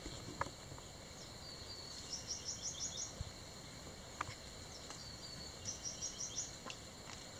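Quiet forest ambience: a high chirping call repeats in quick runs of four or five notes about every three and a half seconds over a faint steady hiss, with a few faint ticks.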